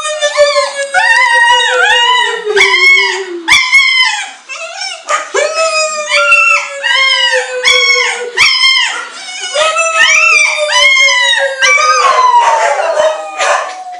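A dog howling in long, drawn-out notes that slowly fall in pitch, with short, wavering wails repeated over them.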